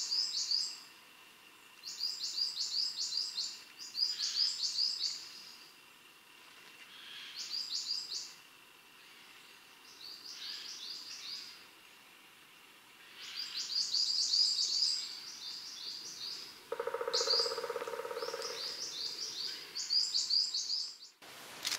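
A small songbird sings in repeated short phrases of rapid, high chirps, about a second each, with pauses of a second or two between them. Late on, a low, fast rattling sound lasts about two seconds.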